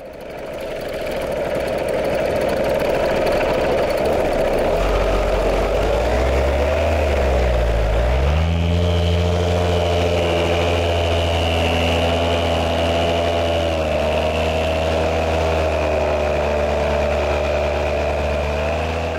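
A vehicle engine running, fading in at the start; its pitch falls and rises again about seven seconds in, then holds at a steady hum.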